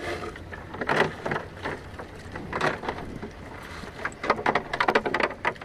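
Irregular splashing and sharp knocks from a fishing net being handled in shallow water, with a quick run of splashes and knocks near the end.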